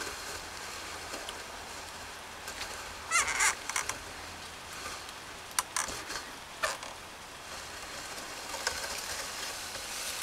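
Plastic reach-and-grab pickup tool clicking and creaking several times as its jaws are worked, over a steady background hiss. The loudest is a quick cluster of clicks with a short squeak about three seconds in, followed by single clicks later on.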